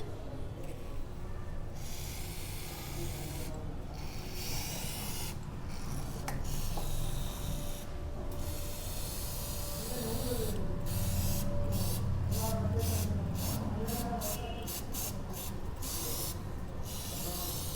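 Aerosol chain-cleaner can hissing as it is sprayed onto a motorcycle drive chain: several sprays of a second or two each, then a quick run of short bursts.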